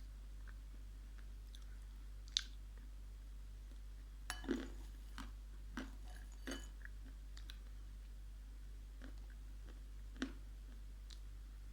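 Dried clay being bitten and crunched in the mouth close to the microphone: a few sharp crunches, most of them bunched together near the middle. A steady low electrical hum runs underneath.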